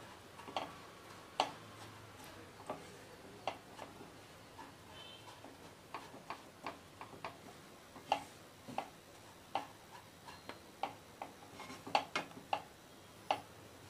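Wooden spatula knocking and scraping against a nonstick kadai while stirring milk powder roasting in ghee: irregular light clicks, a few a second.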